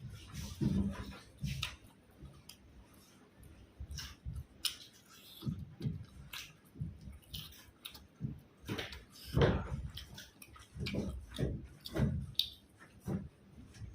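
A person chewing and eating food close to the microphone: irregular clicks and soft low thuds.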